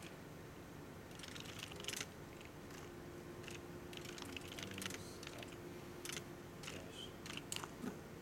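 Typing on a computer keyboard: irregular keystrokes, single taps and quick runs, entering a command line.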